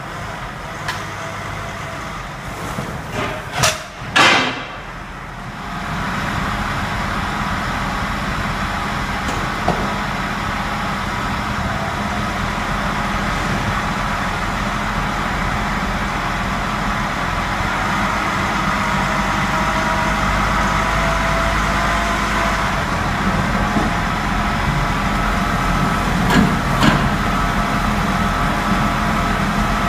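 A few loud knocks, then about six seconds in the motors of a roller brake tester start and run steadily, turning the rear wheels of an all-wheel-drive BMW 330xd while its front wheels spin on free protective rollers. This is a rear-axle brake test, with the drivetrain shielded from the other axle being held still.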